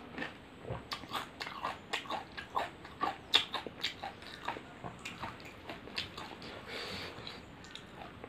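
A person chewing a mouthful of pani puri, the crisp fried puri shells crunching in quick, irregular crackly clicks that thin out about six seconds in.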